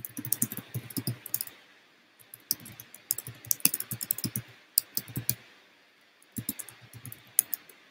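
Typing on a computer keyboard: quick runs of key clicks in three bursts with short pauses between them.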